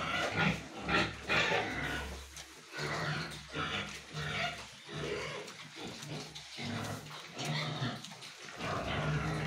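Domestic pig grunting over and over in short grunts as it feeds at a concrete trough.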